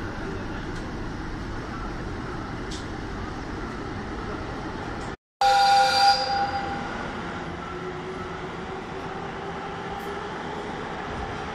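Chichibu Railway Deki 500-class electric locomotive: a steady hum while it stands, then after a brief break a short, loud horn blast, followed by running noise and a faint rising whine as it pulls away.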